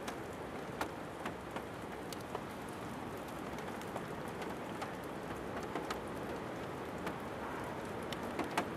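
Steady rain falling, with scattered sharper ticks of single drops landing close by at irregular moments.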